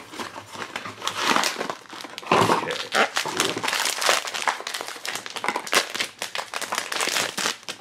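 Crinkling and crackling of a foil blind-box pouch as hands pull it from its cardboard box and work it in their fingers, with many quick sharp crackles close together.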